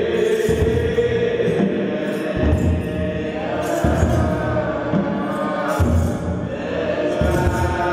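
Ethiopian Orthodox clergy chanting Yaredic liturgical chant (zema) together in long, slowly shifting held notes.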